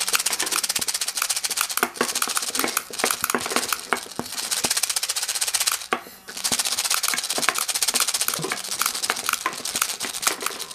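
Homemade motor-driven airsoft gun firing: steady hiss of the air feed and spinning hobby motor, with BBs rattling through and firing in rapid, irregular clicks. It cuts out briefly about six seconds in, then starts again.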